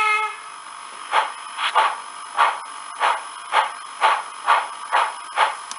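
Recorded steam-locomotive sounds played through a small cube speaker taken from a tablet or phone, its plate cone facing out in a small enclosure. A whistle cuts off at the very start, then steady steam chuffs follow at about two a second.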